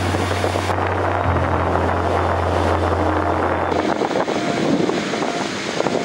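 Sea surf breaking on a beach, with wind buffeting the microphone. A steady low hum runs underneath and stops a little before four seconds in.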